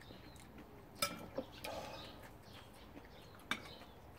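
Faint birdsong with a few sharp clinks of spoon and chopsticks on ceramic bowls, the loudest about a second in and about three and a half seconds in.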